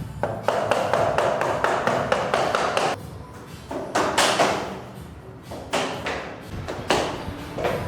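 A quick run of sharp taps and knocks on SPC floor planks being fitted together, then a few short, louder scraping sweeps.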